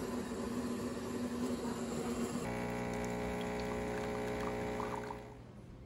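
Water running through plumbing. About two and a half seconds in it is joined by a steady hum with many overtones, and it all stops a little after five seconds.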